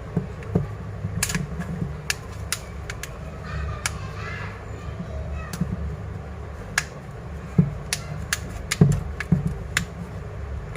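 Plastic back cover of a Realme C2 phone being pried off: irregular sharp clicks and snaps as its clips release, over a steady low hum.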